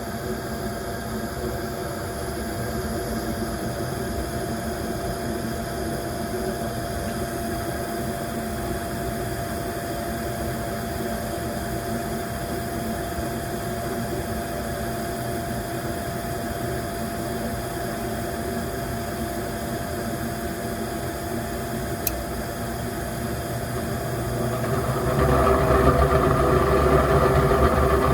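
Gibson gas furnace with a failed heat exchanger running with a steady motor hum and a held tone. A single sharp click comes about 22 seconds in, and a few seconds later the sound swells louder and fuller as another stage of the furnace comes on.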